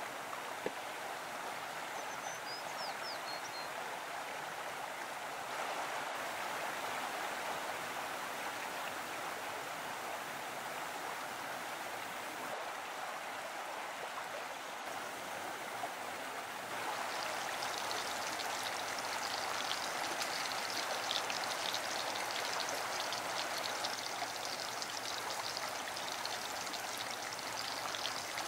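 Steady rushing of a mountain stream. From about 17 s in, a fine crackling sizzle joins it: battered onion rings frying in hot oil in a cast-iron pan over embers.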